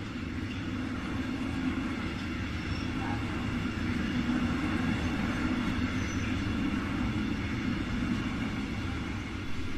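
Freight train of hopper cars rolling across a railway trestle bridge, a steady low rumble that holds even throughout.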